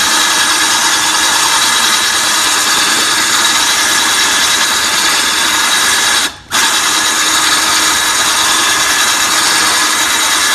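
Cordless drill running steadily as its hole-saw bit grinds into a glass bottle through a water-filled putty dam, still cutting and not yet through. The drill stops for a moment about six seconds in and starts again.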